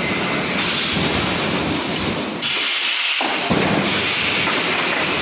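Loud, steady industrial noise of a running 3D EPS wire mesh panel welding machine, with its welding heads and wire feed at work.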